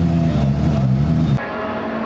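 A car engine just after start-up, its revs flaring and then wavering down toward idle. It cuts off abruptly about a second and a half in, and a different engine's steady idle follows.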